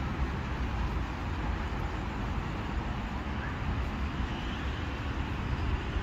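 Steady low rumble of road traffic, with no single vehicle standing out.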